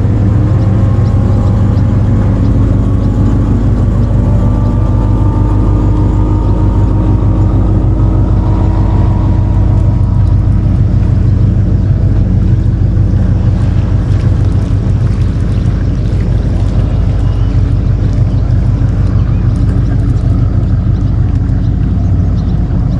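Boat's outboard motor running steadily and loudly, its pitch rising slowly through the first several seconds, then holding.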